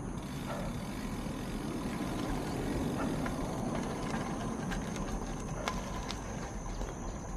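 Bicycle rolling along a rough, potholed asphalt lane: a steady low rumble of tyres on the road surface and wind on the bike-mounted camera's microphone, with a few light clicks and knocks.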